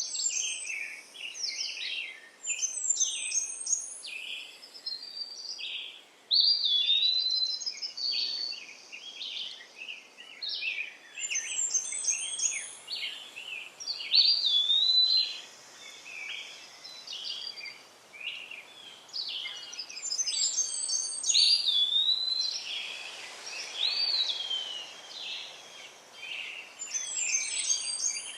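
Songbirds singing and chirping continuously, with overlapping calls and repeated whistled phrases, over a faint steady background hiss.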